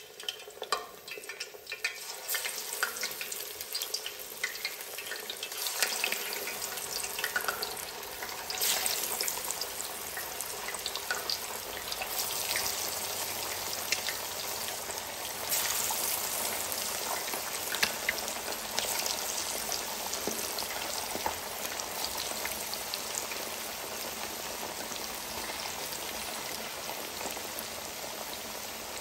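Marinated fish pieces deep-frying in hot oil, a steady sizzle dotted with sharp crackles and pops. The sizzle fills out over the first several seconds as more pieces go into the oil.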